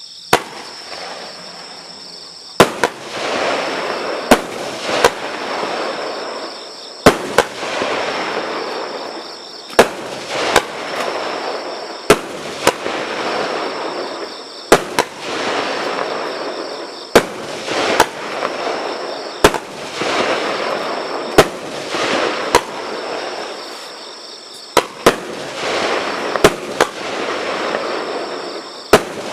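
A 16-shot 30 mm consumer firework battery (cake) firing: sharp bangs every couple of seconds, often in close pairs of launch and burst, each followed by a few seconds of hissing as the dahlia and brocade stars burn out.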